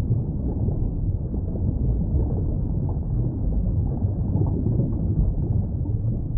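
Steady, muffled low rumble of water noise picked up through an underwater camera housing.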